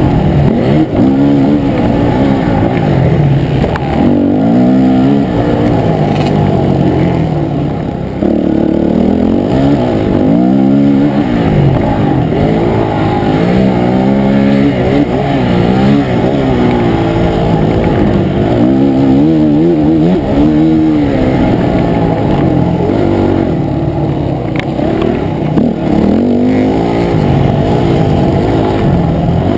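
Motocross dirt bike engine heard from on board, revving up and falling off again and again, rising and falling in pitch every second or two as the rider accelerates, shifts and backs off around the track. It sounds muffled, with little top end.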